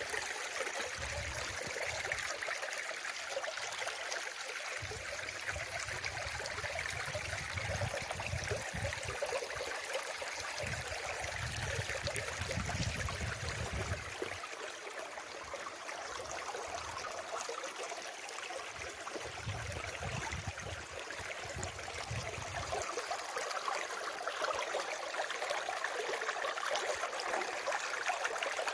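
Running water flowing steadily with an even rushing hiss, like a small stream, with a low rumble that comes and goes during the first two-thirds.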